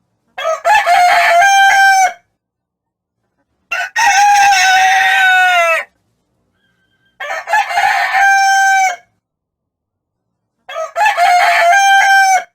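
A rooster crowing four times, each cock-a-doodle-doo about two seconds long, with silence between the crows.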